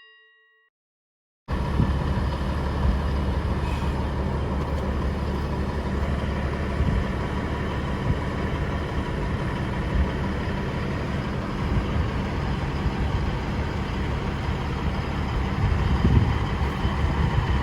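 After a chime fades out and a second and a half of silence, a heavy truck's diesel engine idles steadily, growing slightly louder near the end.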